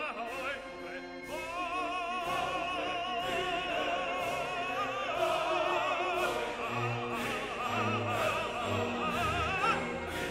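Operatic singing with orchestral accompaniment: a voice holding long notes with wide vibrato.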